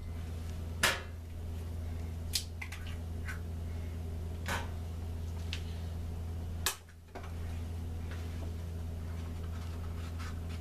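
Kitchen handling noises: a handful of sharp clicks and knocks, the loudest about two-thirds of the way through followed by a brief drop-out of sound, over a steady low hum.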